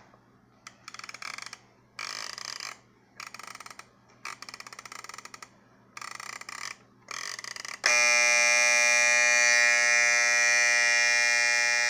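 The alarm buzzer of a 1971 Panasonic RC-7589 flip clock radio sounds in six short bursts of about half a second to a second each. About eight seconds in, it switches to a continuous loud buzz.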